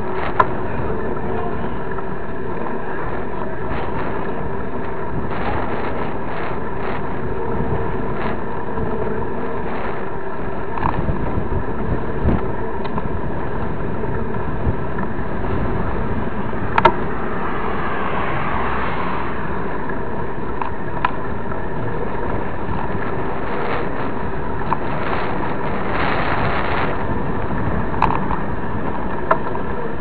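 Steady rushing riding noise of a mountain bike on a trail, wind and tyres picked up by a handlebar-mounted camera, with a few sharp knocks from bumps.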